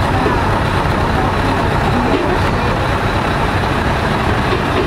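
Steady rumble of heavy road vehicles and traffic, with voices faintly in the background.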